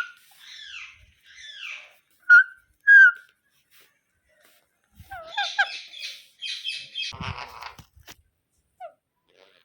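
Indian ringneck parrot calling. A run of sliding, screechy calls comes first, with two short loud calls about two and three seconds in. After a pause of about two seconds comes a burst of rapid chattering.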